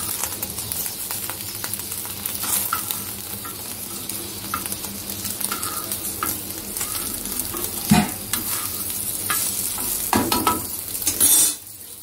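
Egg and kebabs sizzling on a flat iron tawa, with a steel spatula scraping and knocking against the pan as they are turned. There is a sharper knock about two-thirds of the way through and louder clatter near the end, after which the sizzle drops away.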